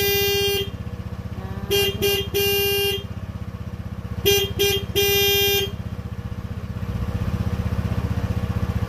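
Motor scooter engine idling steadily while its horn is sounded. The end of a long beep comes first, then two sets of two short beeps and one long beep, a couple of seconds apart.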